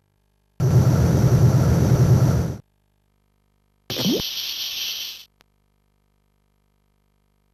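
Animation sound effects: a loud, rumbling noise lasting about two seconds that starts and stops abruptly, then after a short gap a quick rising swoop with hiss that cuts off after about a second.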